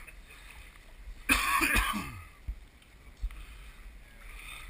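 Pond water sloshing and splashing as hands work on the filter fitting, with one louder splash lasting under a second about a second and a half in and a brief knock a little later.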